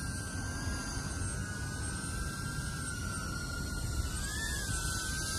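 DJI Avata FPV drone's ducted propellers whining steadily as it hovers and creeps in slowly, the pitch wavering slightly and rising briefly about four seconds in, over low rumbling wind noise.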